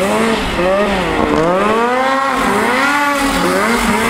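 Snowmobile engine climbing a hill, its revs rising and falling about once a second as the rider works the throttle.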